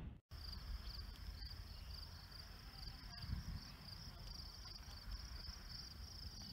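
An insect trilling steadily in a high, evenly pulsing chirr without a break, over a faint low rumble.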